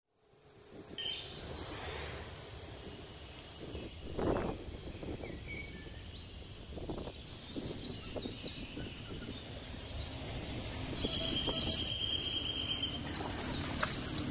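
Birds chirping and calling over a steady high insect buzz, with rustling and a few soft thumps from walking through grass.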